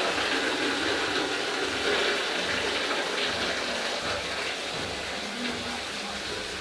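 Water running and splashing steadily during hand-washing of laundry, easing off slightly towards the end.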